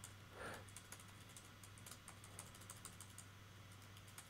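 Faint computer keyboard key presses, one key tapped repeatedly in quick succession, over a faint steady low hum.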